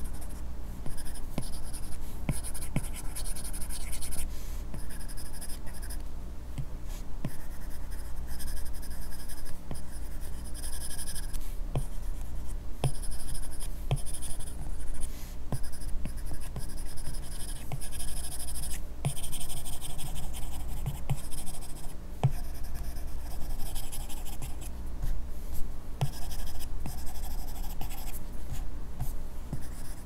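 A bare stylus nib scratching across an iPad screen covered with a paper-texture film, in short repeated strokes, with small sharp taps as the pen touches down.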